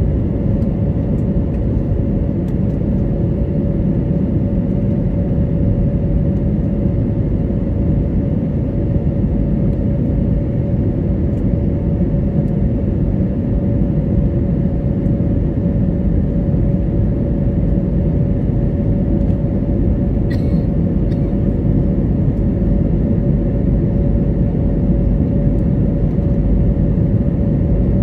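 Steady cabin noise of an Airbus A320neo climbing after takeoff, heard from inside the cabin: a low roar from its Pratt & Whitney PW1100G geared turbofans and the airflow, with a constant hum above it. A small click comes about two-thirds of the way through.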